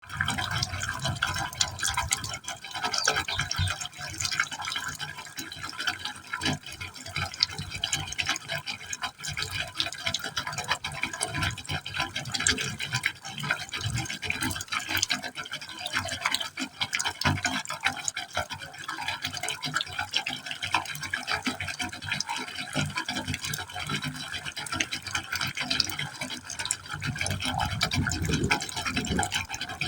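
Water falling into a pipe opening, splashing and gurgling continuously in an irregular patter, with a deeper gurgle in the last few seconds.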